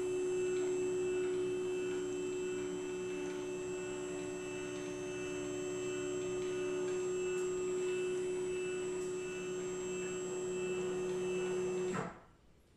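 Stepper motors driving a CNC mill's three axes together in a test move: a steady hum of several tones with a faint high whine, which cuts off near the end.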